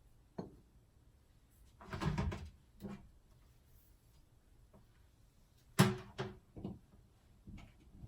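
Kitchen handling sounds: a cupboard door and objects knocking and clattering, with a rustle about two seconds in and one sharp knock near six seconds.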